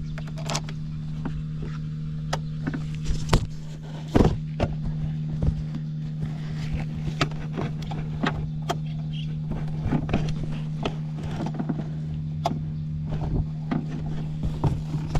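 Honda Cabina 50 scooter's 50cc engine running at a steady, even speed, with frequent short clicks and knocks over it.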